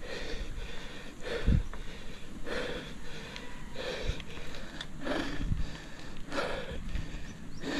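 A cyclist breathing hard while pedalling up a steep climb, with a heavy breath about every second and a few low thumps on the microphone.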